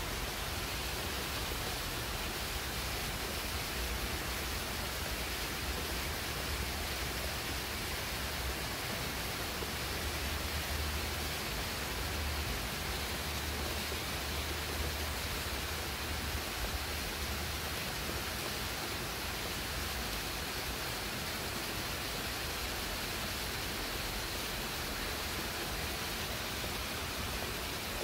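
Steady rain falling on leafy shrubs and trees, an even hiss with no individual drops standing out, over a low rumble.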